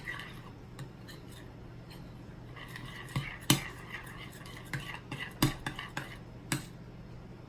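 A spoon clinking and knocking against a bowl while glue, detergent and food colouring are stirred into slime: a dozen or so separate sharp taps, irregularly spaced.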